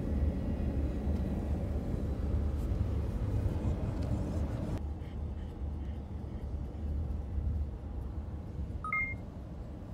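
Steady low rumble of road noise inside a moving car's cabin; the higher hiss drops away a little before halfway. A brief two-note electronic beep sounds near the end.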